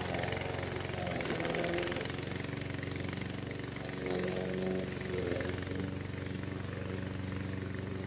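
Vigorun VTC55090 remote-control tracked mower's engine running steadily as it cuts rough grass, its note wavering twice.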